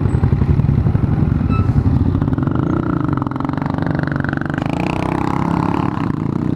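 Honda Supra motorcycle's single-cylinder four-stroke engine running under way, fairly loud, its pitch rising and falling about halfway through as the throttle changes.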